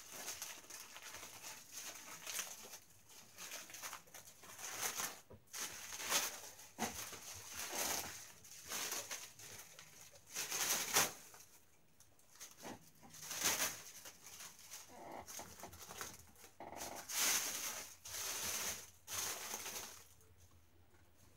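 Clear plastic wrapping crinkling and rustling in irregular bursts as it is pulled off a replica title belt. It quietens near the end.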